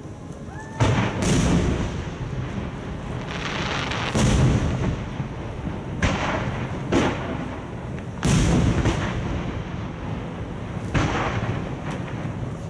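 Aerial fireworks shells bursting in a display: about six loud booms a second or more apart, each trailing off in a rolling rumble and crackle.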